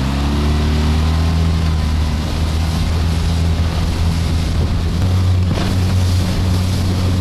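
Small four-stroke Tohatsu outboard motor opening up, its pitch rising over the first second, then running steadily at speed with a slight change in pitch about five seconds in. Wind buffets the microphone, and water rushes along the inflatable hull.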